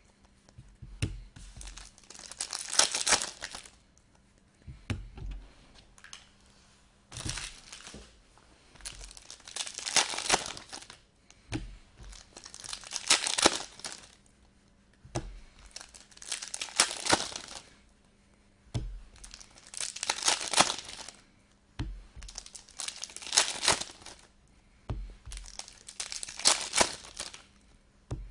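Football trading cards and their plastic pack wrappers being handled: a run of crinkling, sliding bursts every two to three seconds, some starting with a light knock as the cards meet the table.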